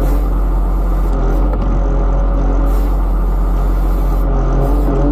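Log skidder's diesel engine running steadily at one constant speed, heard close up from the operator's seat.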